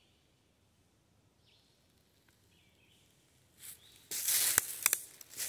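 A few faint, short bird chirps, then from about three and a half seconds in, loud rustling and crunching of dry leaf litter and ground plants as someone moves through the undergrowth.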